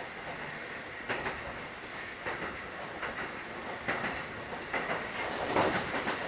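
Interior running noise of a Kotoden 1080-series electric train, a former Keikyu 1000-series car, with its wheels knocking over rail joints about once a second over a steady rumble.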